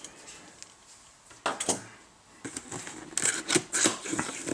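Hands handling the product box and its packaging: scattered clicks, taps and rustles, busier in the second half.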